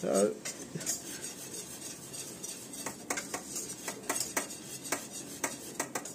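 A spoon stirring and scraping flour halva in a stainless steel pot, with irregular clicks of the spoon against the pot. The flour is roasting in fat before the syrup goes in.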